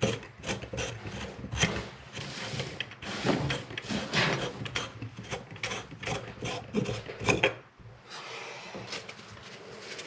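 Corroded metal threads of a faucet handle base scraping and grinding in irregular strokes as it is screwed back on by hand, white vinegar wetting the threads. The scraping stops about eight seconds in.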